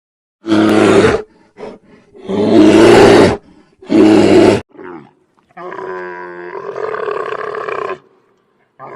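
Big cat roaring: three loud, rough roars in the first few seconds, then a longer, quieter wavering call.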